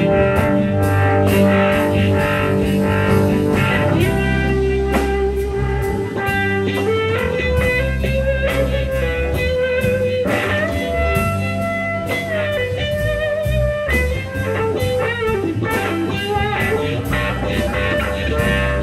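Live blues band playing an instrumental break with no vocals: a lead guitar line of bent, wavering held notes over bass and drums.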